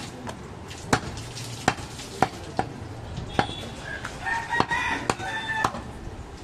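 Butcher's large chopper knife striking meat down onto a wooden log chopping block: about a dozen sharp chops at uneven intervals. Midway a long animal call, about a second and a half, sounds over the chopping.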